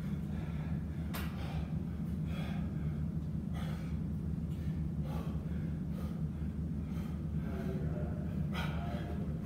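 A man breathing hard through a set of pull-ups, with short sharp breaths about once a second, over a steady low hum.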